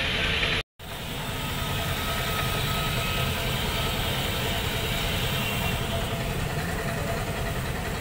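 Steady engine rumble like a vehicle idling, broken by a moment of silence under a second in.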